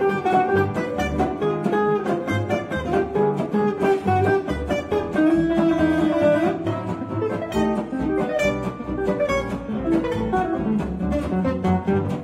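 Live gypsy jazz: a Selmer-style oval-hole acoustic guitar picks a lead line over strummed rhythm guitars and double bass.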